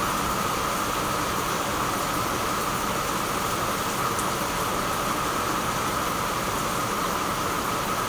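Steady rain falling, an even hiss without breaks.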